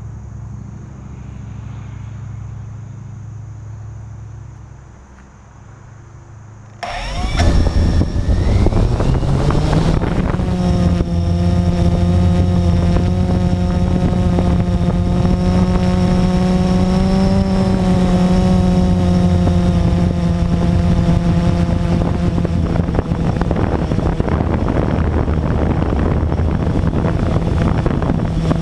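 Blade 350QX quadcopter's electric motors and propellers spinning up about seven seconds in, the whine rising in pitch for a few seconds as it lifts off, then a steady loud buzzing drone while it climbs and flies, heard from the camera on board.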